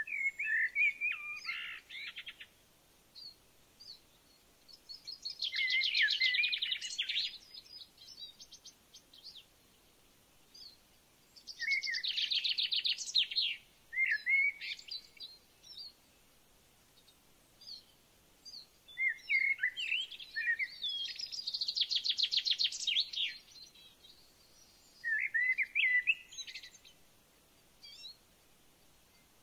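A songbird singing repeated phrases of clear whistled notes and fast trills, one phrase every several seconds, with short quiet gaps between.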